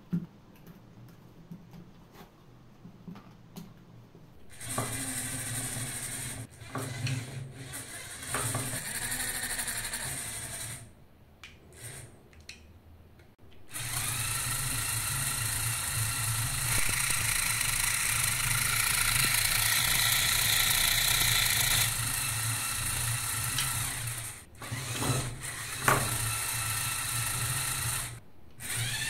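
Two small electric toy motors, a LEGO Power Functions motor and a Chinese copy, whining through their gear trains as two LEGO chassis pull against each other on a chain. They start and stop a few times, then run steadily for about fourteen seconds.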